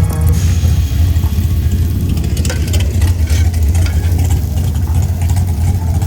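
Race car engine running at idle with a loud, steady low rumble.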